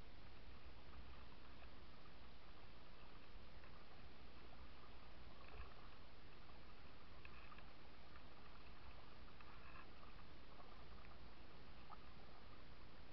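Kayak being paddled on a calm river: a faint, steady wash of water with a few soft paddle splashes.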